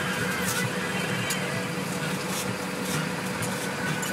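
Fishing boat's engine running steadily while the boat is under way, a constant hum, with wind and the rush of the wake's water.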